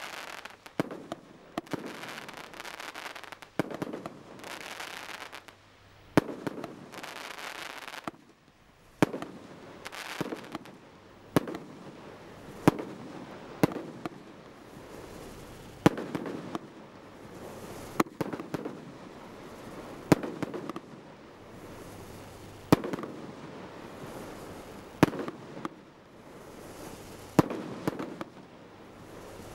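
A 200-shot barrage firework cake (Satanic Desecration) firing: quick pops with hissing noise at first, then separate sharp bangs of bursting shots about every two seconds, with hiss between them.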